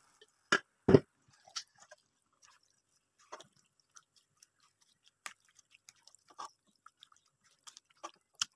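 Silicone spatula stirring raw chicken pieces with oil and spice paste in a nonstick frying pan: scattered wet squelches and soft knocks against the pan. Two louder knocks come about half a second and a second in, and a sharp one near the end.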